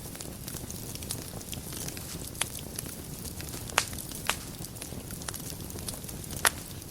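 Wood fire burning in a fireplace: a steady low rush of flames with constant small crackles and four louder, sharp pops.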